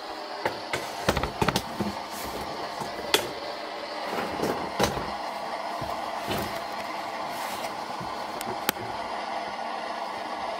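Clicks and knocks from a camera being handled and adjusted on its tripod, several close together in the first two seconds and then single sharp clicks now and then, over a steady hiss.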